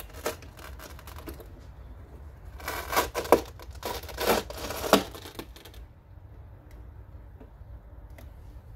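Velcro hook-and-loop strips ripping apart in a few short rasping tears as a hard plastic scale RC Jeep Cherokee body is lifted off its chassis, with light plastic clicks before them. The tearing comes in a cluster about three to five seconds in.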